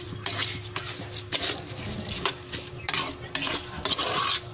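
Metal spoon stirring dry glutinous rice in an aluminium pot, scraping the pot and rustling the grains in irregular strokes. The rice is being sautéed dry before water goes in.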